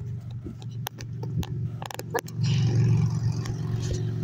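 An engine running steadily with a low hum that grows louder about two and a half seconds in, with a few sharp clicks in the middle.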